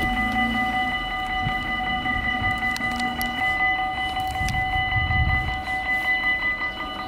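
Railroad crossing warning bell ringing steadily as a held, many-toned metallic ring. A low rumble swells about two-thirds of the way through.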